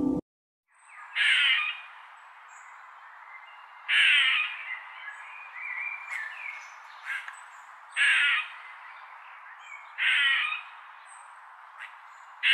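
Squirrel alarm calls played on a TV: five harsh calls, each about half a second long and a few seconds apart, over a steady hiss, with a few fainter chirps between them.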